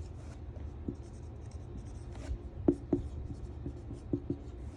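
Pen writing a note in short, scratchy strokes, with two light taps a little past halfway, over a low steady hum.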